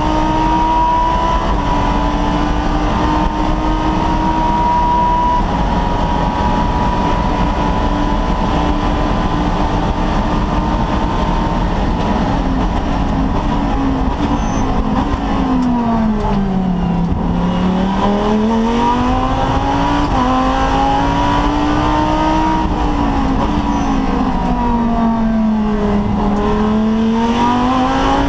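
Lamborghini Gallardo GT3 race car's V10 engine heard from inside the cockpit, running steadily at speed. About halfway through the engine note drops as the car slows, then climbs again as it accelerates, with a second dip and rise near the end.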